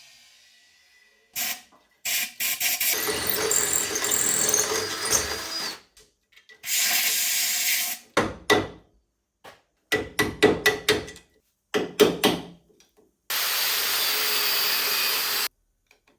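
Compressed-air blow gun blasting rust powder out of a 1974 VW Beetle's front axle beam: long hissing blasts of a few seconds that cut off sharply, with a run of short bursts in the middle.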